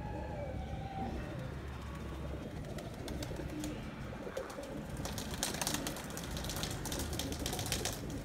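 A flock of Pakistani high flyer pigeons cooing, with a rapid run of sharp clicks from about five seconds in.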